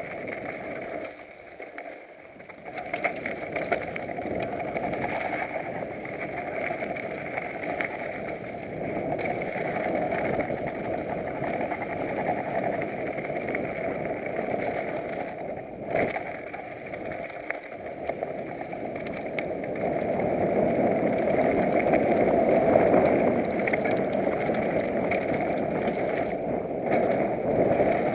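Mountain bike riding fast down a dirt and gravel trail, heard from a camera on the bike or rider: a steady rush of wind and tyre noise with rattles and knocks from the bike over bumps. It grows louder over the last third of the run, and there is a sharp knock about halfway.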